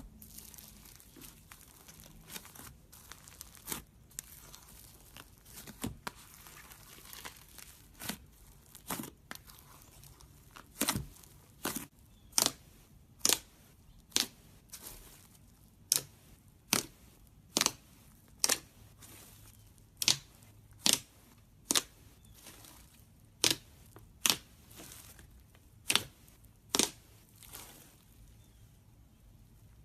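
Slime being pressed and stretched by hand, making a long series of short, sharp pops, roughly one a second, over a faint crinkly rustle. The pops grow louder about a third of the way in.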